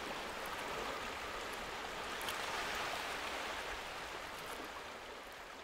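Steady rush of sea water washing on a rocky shore, slowly fading near the end.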